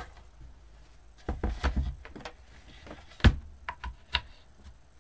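Wooden clicks and knocks: a wooden peg-board bow maker is set down on the table and its wooden pegs are pulled and pushed into new holes, with one sharp loud knock about three seconds in.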